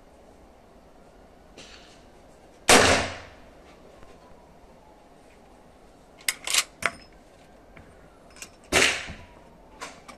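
Two gunshots about six seconds apart, each a sharp bang that rings off briefly, the first the louder. In between comes a quick run of three or four metallic clicks as a Winchester 1873 lever-action rifle's lever is worked.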